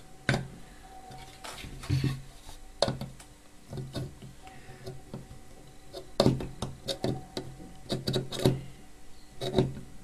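Pliers crimping the sheet-metal filter-box cover of a microwave oven magnetron shut: a series of sharp metallic clicks and knocks at irregular intervals, bunched around two, three, six and eight seconds in.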